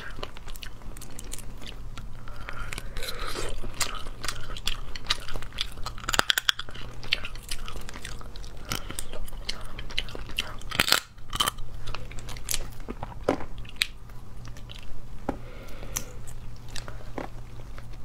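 Close-miked eating of cooked spicy crabs: crab shells cracking and crunching as they are pulled apart and bitten, with chewing between. There are many sharp cracks, uneven and irregular.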